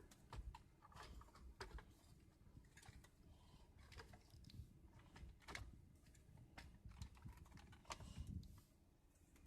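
Faint, irregular clicks and taps of hands working an AUX cable through behind a car's dashboard radio.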